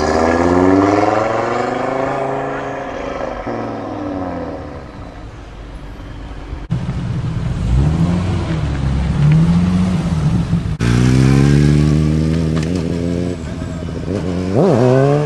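Audi RS3 sedan's turbocharged five-cylinder engine accelerating away with rising revs, then fading. Then a wrapped BMW 1 Series hatchback's engine revving low and unevenly, followed by a motorcycle engine pulling away with rising revs and one sharp rev blip near the end.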